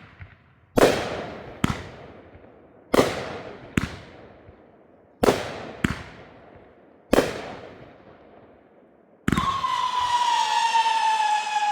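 Wolf Warrior consumer firework cake firing: about seven sharp bangs in the first seven seconds, each with a long fading echo. Then, about nine seconds in, a howler shot starts a loud whistle that slowly falls in pitch and runs on.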